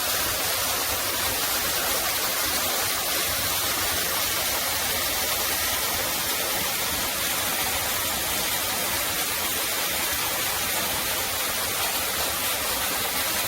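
Mountain stream rushing steadily over rocks, a constant hiss of flowing water.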